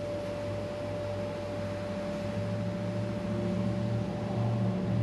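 A steady machine hum with a constant high whine over it. The low hum grows louder about two seconds in.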